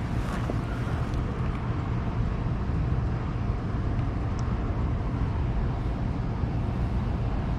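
Steady low outdoor background rumble with no distinct events, of the kind made by distant road traffic or wind on the microphone.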